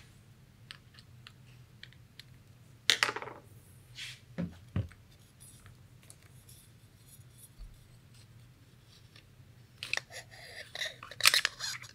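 Metal parts and tools of an FX Wildcat MKIII air rifle being handled on a bench while the barrel is removed. There is a metallic scrape about three seconds in, then two soft knocks, then a run of clicks and rattles near the end.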